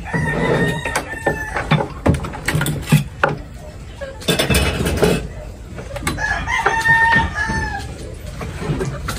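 A rooster crowing twice, each crow a held call of about a second and a half, near the start and again about two-thirds of the way through. Scattered knocks and clatter of tools being handled on a wooden workbench.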